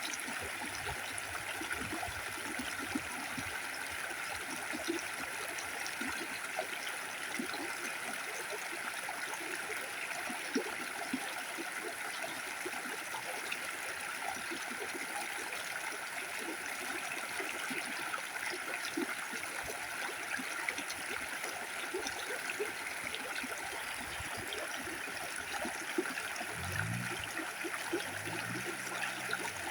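Stream water running steadily, a continuous gurgling flow with many small splashes. A faint low hum with a shifting pitch comes in briefly near the end.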